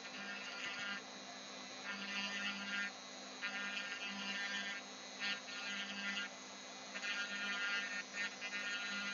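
Small electric grinding pen whining in repeated bursts of about a second with short breaks, as it grinds into a circuit board to expose any copper trace left under a lifted pad.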